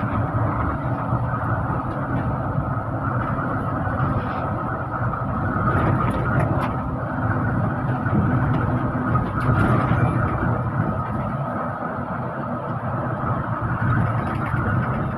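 Steady engine and road noise of a bus on the move.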